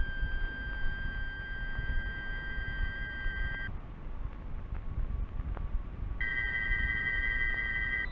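Electronic film-score music: a high, held electronic tone that breaks off about three and a half seconds in, then after a pause returns with a second, slightly higher note added, over a low rumble.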